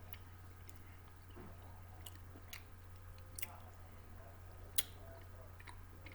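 A person chewing and biting snack food close to the microphone, with scattered crisp crunches and mouth clicks. The loudest is a sharp click near the end.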